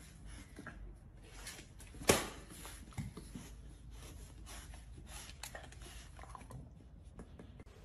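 Faint rustling with scattered light clicks and knocks, one sharper knock about two seconds in.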